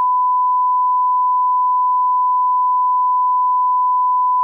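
Steady 1 kHz line-up test tone played over colour bars: one pure, unwavering beep held at a constant level.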